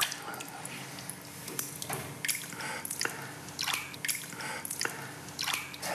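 Disinfectant bath water splashing and dripping in short, irregular splashes as a newly hatched Nile crocodile is dipped and handled in it.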